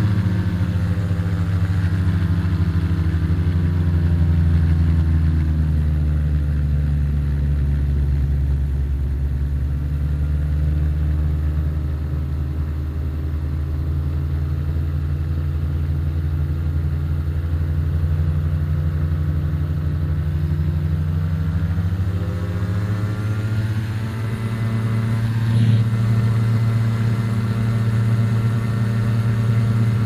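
The ultralight's Rotax 582 two-stroke engine driving a three-blade Warp Drive propeller in low flight. The engine note falls over the first several seconds as power comes off, holds low through the middle, and rises again about two-thirds of the way through as power is added.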